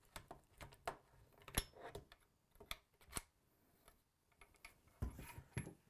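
Faint, scattered clicks and light metal scrapes of an AirForce TalonP air rifle's spin-lock castle nut being turned off by hand and the air bottle separated from the receiver, with a louder handful of knocks and handling noise about five seconds in.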